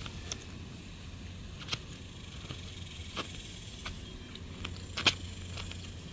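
Razor blade scraping cured windshield-repair resin off the glass: a faint light scraping with a few sharp ticks, the loudest about five seconds in, over a steady low hum.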